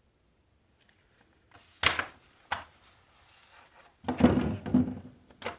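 Handling noise of hard objects being moved about: a sharp knock, a lighter second knock, then a short burst of clattering knocks and a final click near the end.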